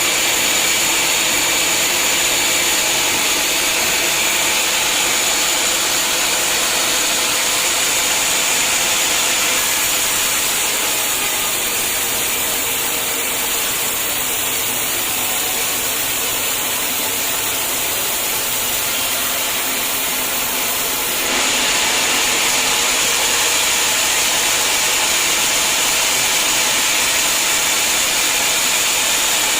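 A sawmill saw running steadily through a hard acacia log. Partway through, the sound drops a little in level for about ten seconds, then jumps back up abruptly.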